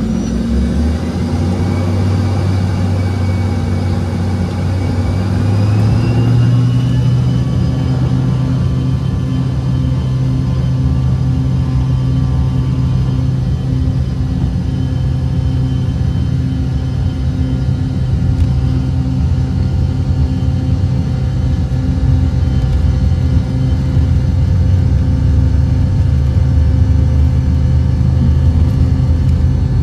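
Jet airliner engines running with a steady whine over a heavy low rumble. The whine climbs in pitch over the first six seconds and then holds steady.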